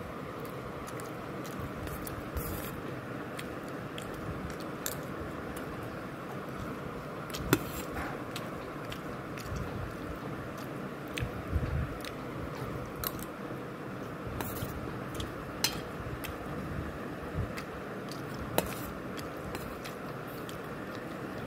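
A person chewing fried food close to the microphone, over a steady background hiss, with a few sharp clicks scattered through.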